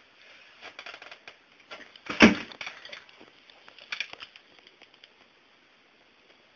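Rustling and crackling of a phone being handled, then one loud thump about two seconds in as a bare foot steps onto a glass bathroom scale, and a few lighter knocks about four seconds in.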